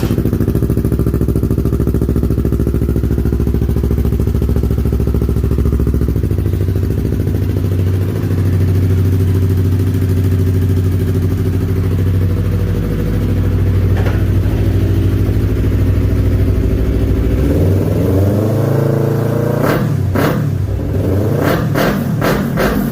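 Yamaha R3's 321 cc parallel-twin engine breathing through an Akrapovic M1 full exhaust system, idling steadily. About 18 seconds in the revs climb, and near the end come several quick throttle blips with sharp cracks.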